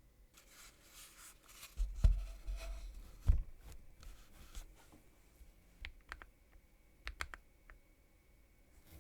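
Handling noises from a mechanical keyboard: scraping and rustling, two low thumps about two and three seconds in, then a few scattered sharp clicks, not a typing rhythm.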